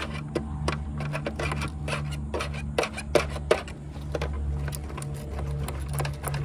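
Small metallic clicks and rattles of a screwdriver and wire ends being worked at the conduit lock nuts inside a boat-lift control box, with a few sharper taps around three seconds in. A low hum runs underneath.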